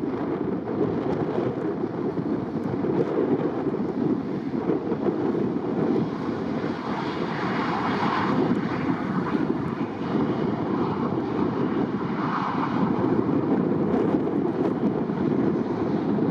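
Airbus A319's CFM56 turbofan engines on a landing approach: a steady jet rumble that swells briefly about halfway through and again a few seconds later.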